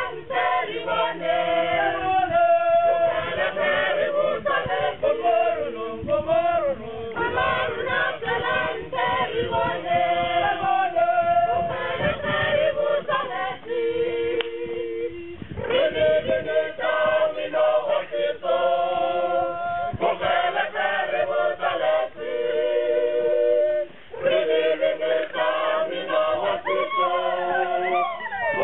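A mixed group of men and women singing together without instruments, in several-part harmony, with held notes that change every second or so.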